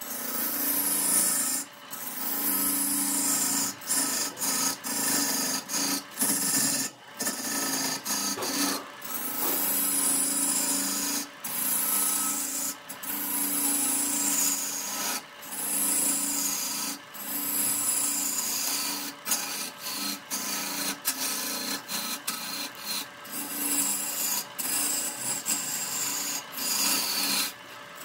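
A tool scraping and rubbing against wood spinning on a wood lathe, in repeated strokes every second and a half to two seconds, over the lathe's steady low hum. The sound breaks off briefly many times.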